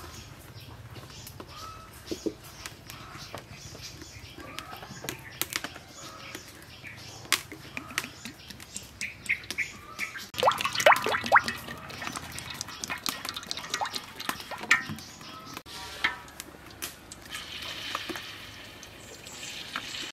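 Cooking sounds at a charcoal stove and wok: scattered knocks and handling clatter, with a dense burst of clattering about halfway through and birds chirping. Near the end, hot oil starts to sizzle as food goes into the wok.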